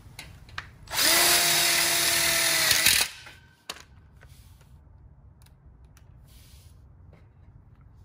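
Cordless impact driver spinning up and driving a screw through a steel connector plate into a steel frame tube, running for about two seconds from about a second in and then stopping. A faint click follows shortly after.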